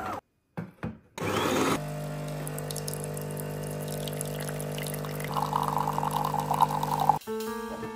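Automatic bean-to-cup espresso machine brewing: its pump hums steadily while espresso streams from the twin spouts into a cup, with a rougher hiss joining in about five seconds in. Near the end it cuts off and soft piano music starts.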